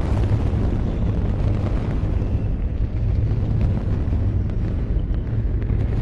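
Saturn V S-IC first stage's five F-1 rocket engines firing on the test stand: a steady, deep, unbroken rumble with most of its weight in the bass.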